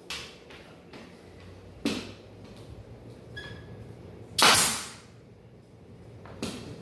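Pneumatic nail gun shooting nails through baseboard trim: four sharp shots, the loudest about four and a half seconds in, trailing off over half a second.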